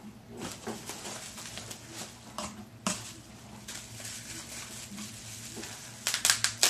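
Plastic bags and bubble wrap rustling and crinkling as products are unwrapped by hand from a cardboard box, with a louder run of sharp crinkles near the end.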